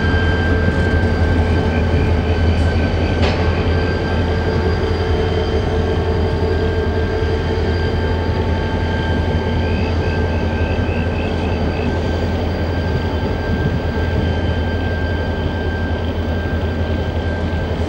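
Loaded mineral sands freight train rolling past with a steady low rumble and a thin, constant high squeal over it. Two short runs of quick high chirps come about two seconds in and again about ten seconds in.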